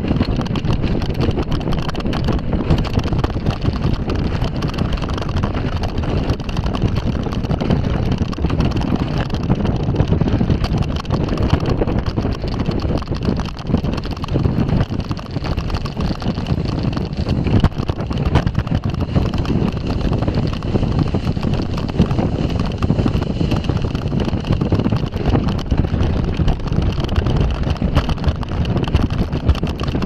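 Continuous rumble and rattle of a gravity-driven bobsled car running fast along its tubular metal rail track, with wind buffeting the microphone.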